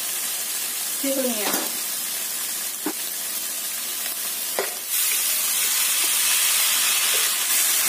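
Stir-fry sizzling in a hot wok, with a couple of short clicks partway through. About five seconds in the sizzle swells louder as seasoned rice-vermicelli noodles are tipped into the hot pan.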